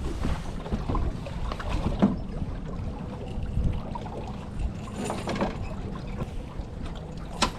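Wind rumbling on the microphone in an open boat, with scattered knocks and clatters. The sharpest knock comes near the end.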